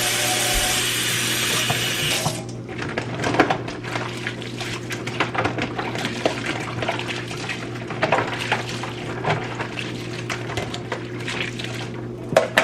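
A tap runs with a steady hiss and is shut off about two seconds in. Light clatters and knocks follow as items are handled at the sink.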